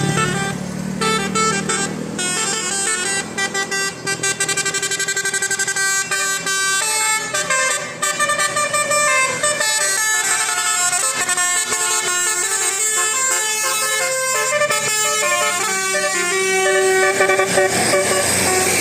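Basuri-type multi-tone bus horn playing a tune, its notes stepping quickly up and down in pitch, loud and continuous. A low hum sits under it for the first couple of seconds.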